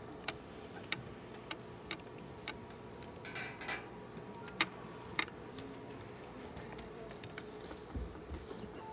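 Light scattered clicks and taps, roughly one every half second to a second, from performers moving about and handling things on stage, over a faint steady hum.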